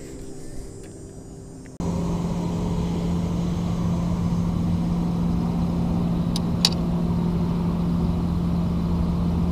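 Boat motor running with a steady hum that comes in suddenly about two seconds in, with two light clicks past the middle.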